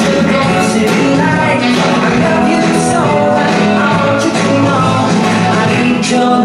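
Up-tempo song with a singer over a band, the music for a Lindy Hop dance routine.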